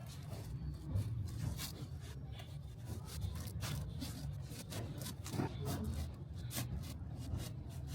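Cord being pulled and rubbed through a charpai's woven webbing: a run of short scraping, rasping strokes at uneven intervals over a steady low rumble.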